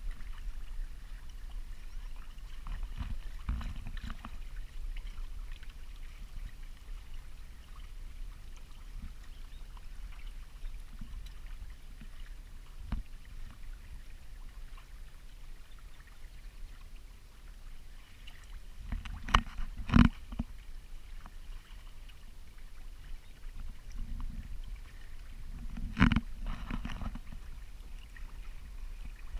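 Hobie Tandem Island sailing kayak under way on open water: a low steady rumble of water and wind. A few sharp knocks come twice close together about two-thirds of the way in, and once more near the end.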